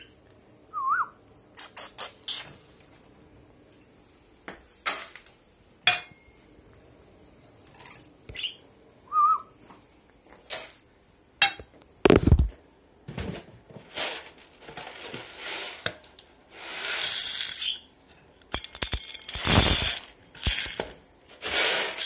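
Irregular clicks, knocks and clatter from a budgie cage and its food dish being handled, with two longer rustling hisses in the last few seconds. A budgie gives a couple of short chirps.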